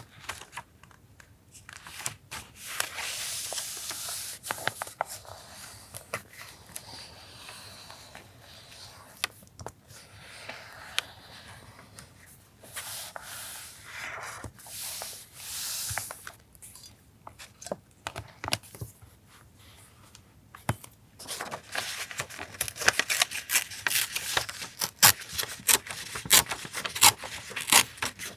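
Paper being torn, rubbed and crinkled in stretches of rustling. In the last six seconds or so comes a quick run of sharp clicks and taps.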